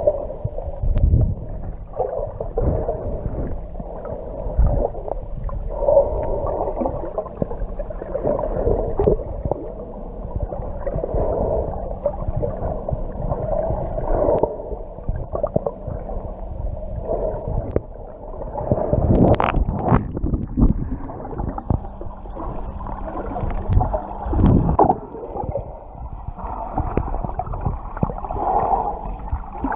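Muffled underwater sound of a camera held below the sea surface while snorkelling: irregular sloshing and gurgling of water around the housing. There is a sharper splash or knock about two-thirds of the way through.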